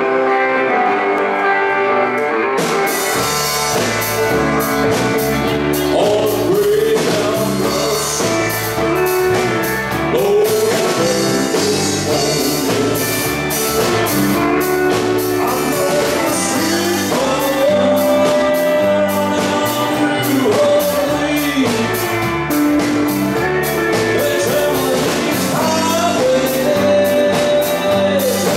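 A rock and roll band playing: electric guitars and bass with a lead vocal, and the drum kit coming in about two and a half seconds in.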